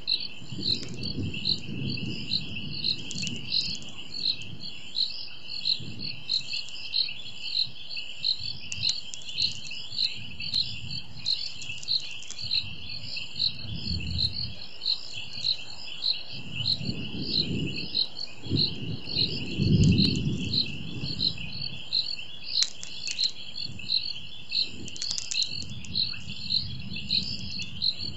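Night insect chorus: crickets give a steady high trill with regular chirping pulses, several a second. Low rumbling swells and fades under it several times and is loudest about two-thirds of the way through.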